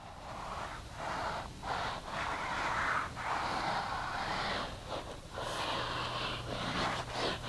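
Felt whiteboard eraser wiping across a whiteboard in several back-and-forth strokes: a dry rubbing hiss that breaks off briefly between strokes.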